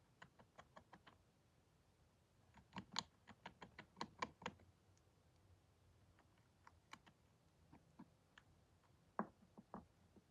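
Faint, irregular clicks and small cracks in quick clusters: a small pet chewing and gnawing on a stick toy.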